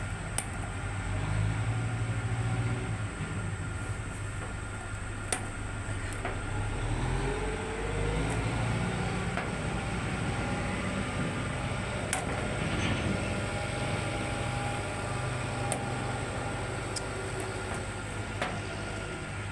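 A steady low mechanical hum, like a motor running, with a few sharp metallic clicks of pliers working the retaining clips off a tractor engine's rocker arm shaft.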